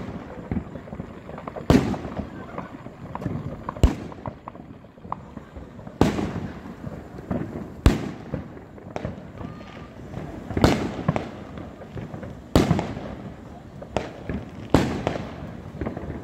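Consumer fireworks going off on the ground: a sharp bang about every two seconds, with crackling in between.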